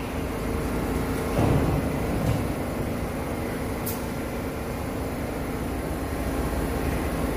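R62A subway train standing at the platform, giving a steady low rumble and hum. There are two low thumps about a second and a half in, and a short click a little later.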